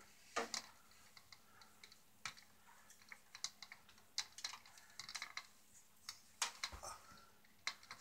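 Small irregular clicks and rustles of stiff electrical wires being handled, lined up and joined at a ceiling junction box, with a soft thump about three-quarters of the way through.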